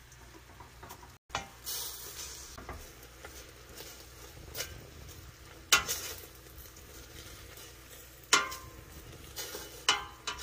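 Soaked seaweed and beef sizzling as they are stir-fried in a stainless steel pot, stirred with a wooden spatula. The spatula knocks sharply against the pot three times in the second half.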